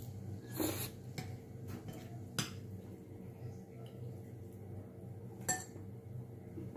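Metal spoon and fork scraping and clinking against a ceramic bowl as food is scooped, with a few sharp clinks, over a steady low hum.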